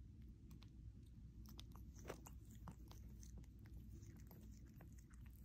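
Faint, scattered wet clicks of a mother cat licking and chewing at her belly and newborn kitten just after giving birth, a few clicks louder about two seconds in, over a low hum.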